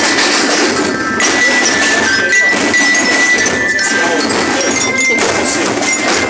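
School parade percussion band playing, a dense continuous mass of drums and percussion, with a high steady piping note coming and going over it.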